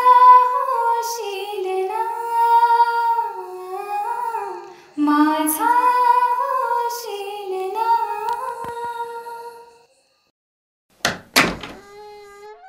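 A woman humming a slow, wordless melody in two long phrases, with a brief break about five seconds in. It stops about ten seconds in, and a second later there are two quick thumps.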